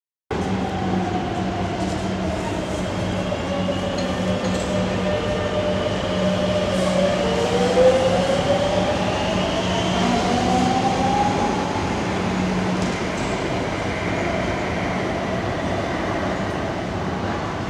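Madrid Metro train pulling out of the station: its electric traction motors whine, rising in pitch as it speeds up, over a steady low hum that dies away about three-quarters of the way through as the train leaves.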